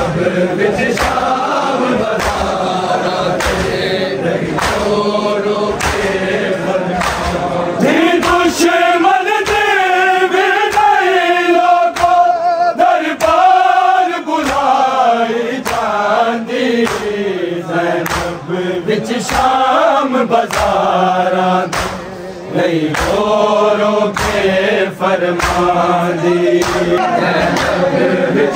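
A group of men chanting a noha, a Shia lament, in unison with a rising and falling melody. Under it, sharp hand strikes keep a steady beat about once a second, the chest-beating of matam.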